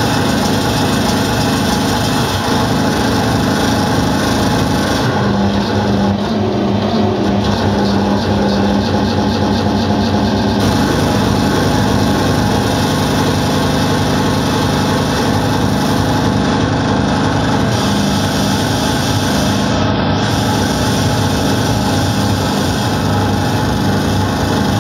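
Loud electronic dance music from a DJ set played over a club sound system: a fast, dense kick-drum beat under steady droning tones, with the bass line changing about five and ten seconds in.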